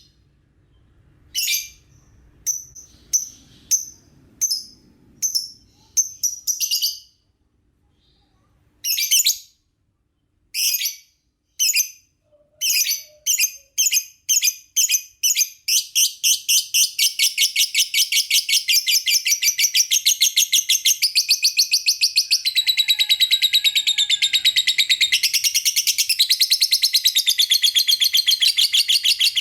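Lovebird chirping: separate short bursts of shrill chirps at first, coming closer and closer together, then, from about halfway through, an unbroken rapid chattering song.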